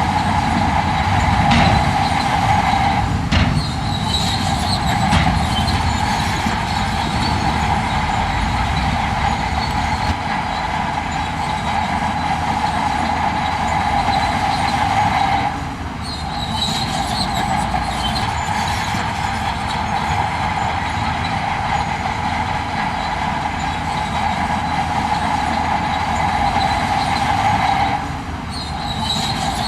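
Heavy diesel earthmoving machinery working, engine running steadily with a continuous high whine over the rumble; the whine drops off briefly about halfway through and again near the end, and a few knocks sound in the first seconds.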